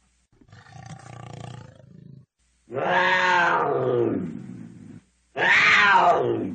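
Cougar calling: a quieter rough call first, then two loud drawn-out screams, each rising slightly and then falling in pitch.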